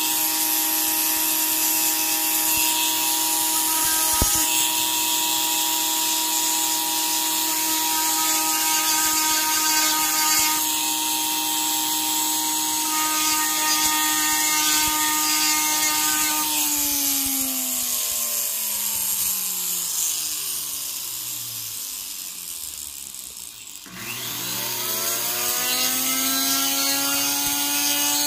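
Flex-shaft rotary tool with a sanding disc, running steadily with a high grinding hiss as the disc sands a gold ring with a lapis inlay, taking off excess super glue. About 17 s in the motor slows over several seconds and stops. It then speeds back up and runs steadily again near the end.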